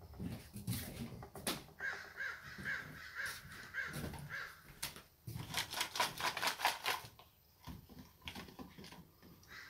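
Steller's jay calling: a run of harsh, evenly repeated notes, about two and a half a second, followed by a fast rattling run of clicks.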